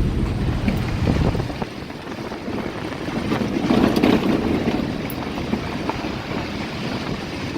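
A vehicle driving on a rural road, heard from inside: steady engine and road rumble, its deepest part easing off about two seconds in and building again near the end.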